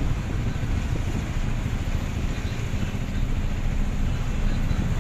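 Engine and road noise of a moving vehicle: a steady low rumble with no distinct events.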